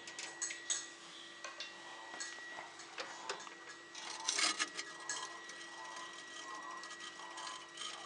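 Light, irregular clicks and scrapes of a knife blade against a soft kiln brick as it prises up the lid of a hot microwave kiln, busiest about four seconds in, over a faint steady hum.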